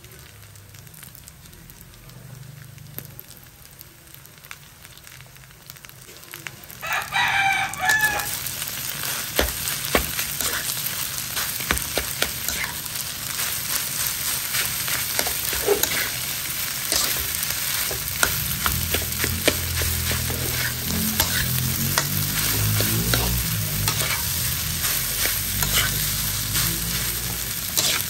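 Garlic fried rice with egg sizzling in a hot metal wok as a metal spatula stirs and scrapes it, with many clicks of the spatula against the pan. It is quiet for the first several seconds, and the frying gets much louder about seven seconds in. A rooster crows once, briefly, at about that moment.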